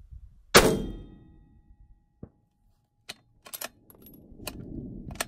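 A single shot from a 6mm Creedmoor rifle, a sharp crack about half a second in that rings off over about half a second. Several light clicks follow as the rifle is handled.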